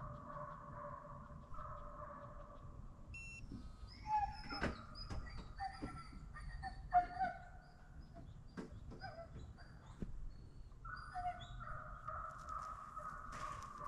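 Hunting hounds baying in long drawn-out calls at a distance while running deer on a dog drive. Small birds chirp in the middle stretch, along with a few sharp clicks.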